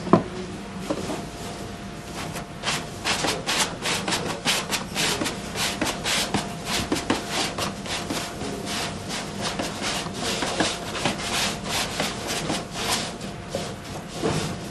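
Shoji paper being rubbed and smoothed by hand onto an Akari lamp's wire-ribbed frame: a dense, irregular run of papery rustling and scraping strokes. It opens with a single sharp knock, and a faint steady hum sits underneath.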